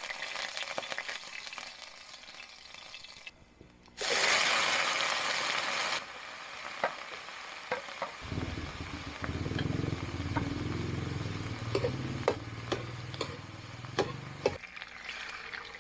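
Chopped carrot, chayote and onion tipped into hot oil in a wok, with a loud burst of sizzling about four seconds in that lasts some two seconds. After that comes steady frying, with the clicks and scrapes of a spatula stirring against the wok. A low hum runs under the frying through the second half.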